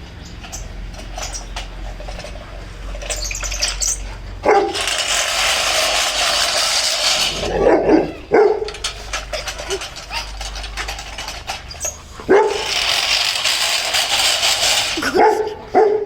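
Rottweiler puppy barking repeatedly at a running lawnmower. The mower's noise comes in two stretches of a few seconds each, with barks between and after them.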